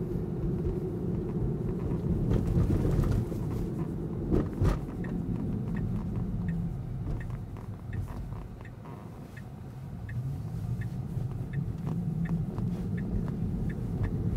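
Tyre and road noise of a Tesla Model 3 Performance heard inside its cabin, a steady low rumble, with no engine note since the car is electric. A single knock about four and a half seconds in, and faint light ticking through the second half.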